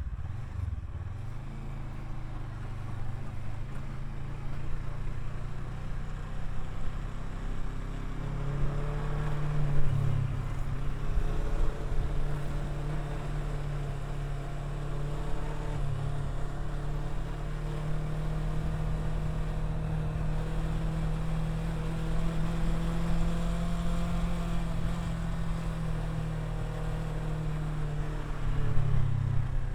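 Kawasaki Versys 650's parallel-twin engine running under way as the motorcycle is ridden. The engine note rises and dips a few times, then holds steady through most of the second half.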